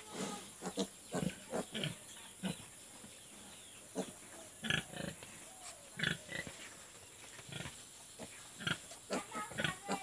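Pigs grunting and squealing in short, scattered calls, with brief quiet gaps between.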